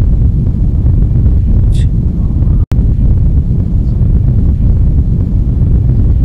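Loud, steady low rumbling noise that cuts out completely for an instant a little before halfway through, with a faint brief high sound about two seconds in.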